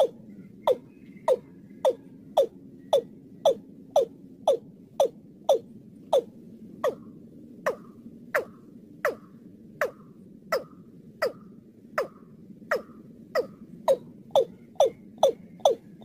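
Watercock (Gallicrex cinerea) calling in a steady series of short notes, about two a second, each with a sharp onset and falling in pitch, coming a little faster near the end. This is the call used as a lure to draw watercocks in for trapping.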